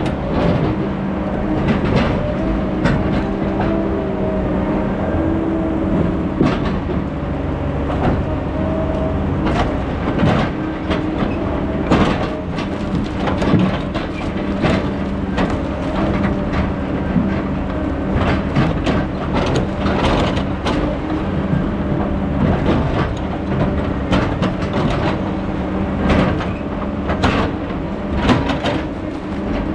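Heavy diesel logging machinery running steadily, with frequent clanks and knocks over the engine.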